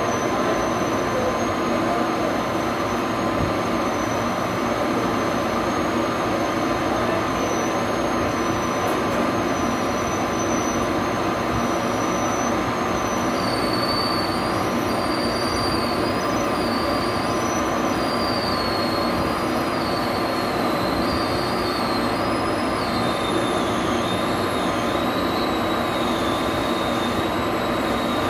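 Metal-cutting lathe running as the tool turns a fountain nozzle, with a steady machine hum and a thin high squeal from the cut that wavers and drops in pitch about halfway through.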